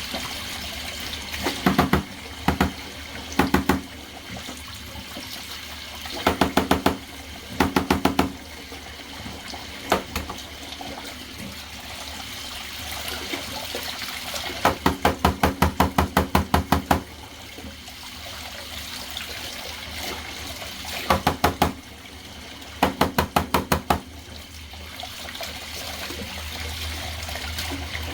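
Bathtub spigot running steadily while dirty vacuum filters are rinsed under it, with bursts of rapid knocking every few seconds, the longest lasting about two seconds.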